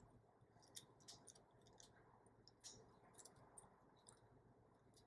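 Faint, scattered light clicks of a 3D-printed PLA hexagon-tile fabric being flexed in the hands, its loose ball-and-socket joints rattling against each other.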